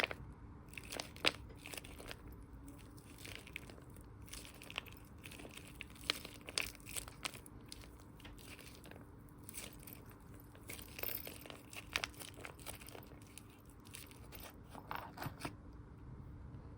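Irregular crinkling and crunching with scattered sharp clicks and scratches: squishy toys and their plastic packaging being handled and squeezed.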